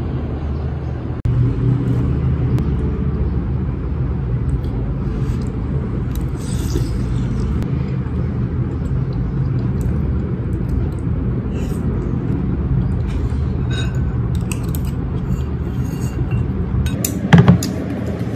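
Steady low rumble of construction machinery, with light clinks of a metal fork against a ceramic bowl. A sharp, louder knock comes near the end.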